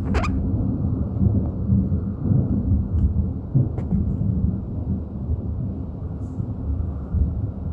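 Thunder rumbling long and deep, loudest over the first few seconds and then slowly dying down.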